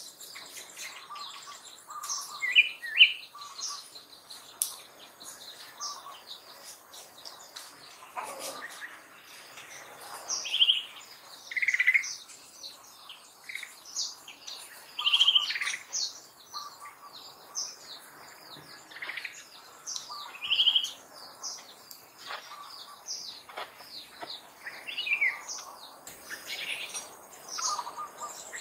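Wild birds calling and chirping in short, irregular bursts, some notes gliding up or down, over a faint steady insect drone.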